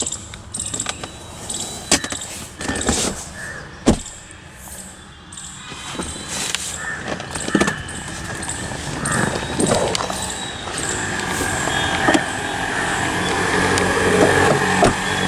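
Handling noises from a car's rear seat and door: sharp clicks and knocks, the largest about four seconds in, with rustling as a person climbs out through the open rear door. A steadier outdoor background takes over for the second half.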